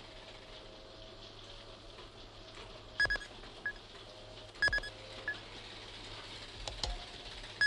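Short electronic bleeps, in small clusters about three, four and a half and seven seconds in, over a faint steady hum.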